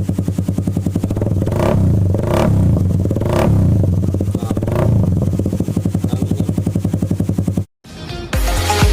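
Suzuki Raider 150's single-cylinder engine running through an aftermarket muffler, idling loudly and blipped up in short revs about four times before settling back. The sound cuts off abruptly near the end.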